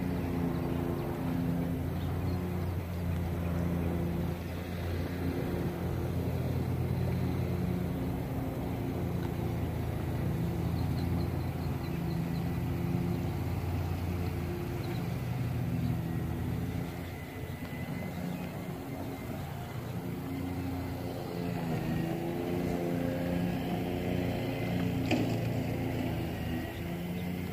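Outboard boat engine idling, a steady low hum at an even pitch, with a single sharp click about 25 seconds in.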